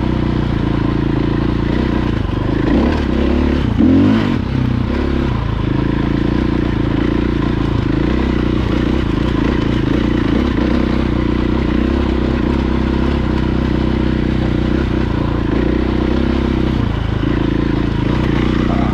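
Dirt bike engine running steadily as it is ridden along a rocky track, with a brief burst of revs about four seconds in.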